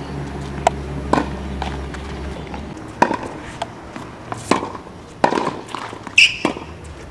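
Tennis rally on a hard court: rackets striking the ball and the ball bouncing, heard as about eight sharp pops at uneven intervals, the loudest about six seconds in.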